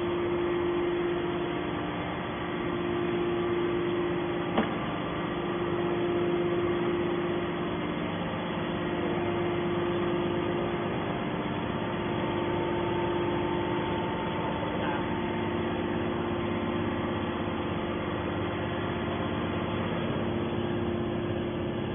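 Steady machine hum with a held low tone, from a hydraulic scrap metal baler's electric motor and pump running while the press is at rest. One short click about four and a half seconds in.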